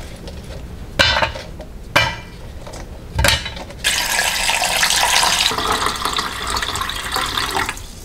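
Three sharp knocks as dried anchovies and kelp are dropped into an enamel pot, then a steady stream of rice-washing water poured into the pot for about four seconds, filling it.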